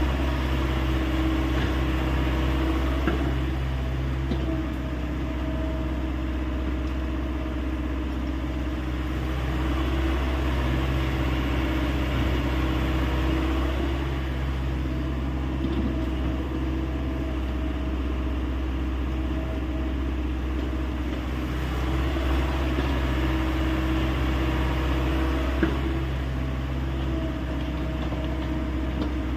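Hyundai 85A excavator's diesel engine running steadily, swelling and easing in spells as the hydraulics are put under load during digging work.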